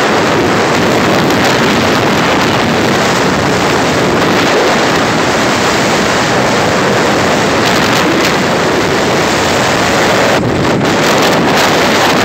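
Loud, steady wind rushing over a phone's microphone while riding a motorcycle at road speed, the engine and road noise buried in it. About ten seconds in the sound is briefly muffled.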